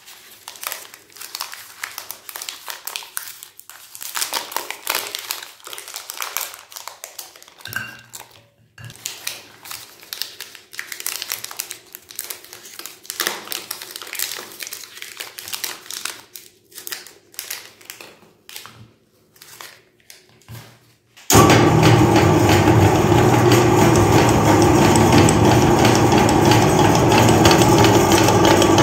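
Thin plastic candy wrappers crinkling and tearing, one after another, as chocolate wafer bars are unwrapped by hand. About 21 seconds in, an electric meat grinder switches on abruptly and runs steadily and loudly, its motor and auger turning empty.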